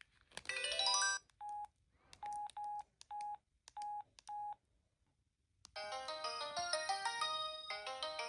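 Samsung SGH-P207 cell phone: a quick rising run of notes, then six short key-press beeps at the same pitch as its menus are worked. After a second's pause, a polyphonic ringtone melody starts about five and a half seconds in and keeps playing.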